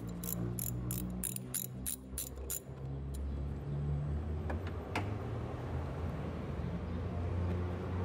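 A socket ratchet clicking rapidly, about four to five clicks a second, as it backs off the nut on a car battery's negative terminal clamp. The clicking stops about three seconds in, leaving a low steady rumble with one more click a couple of seconds later.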